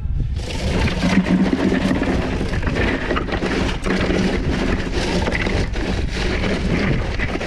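Wind buffeting the microphone on an open boat: a loud, steady rumble and hiss that sets in suddenly about half a second in, with a faint hum underneath.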